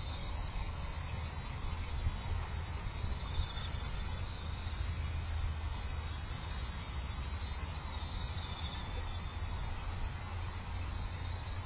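Chorus of autumn insects in the rice paddies, a steady high-pitched chirring trill that keeps on without a break. Under it runs a steady low rumble.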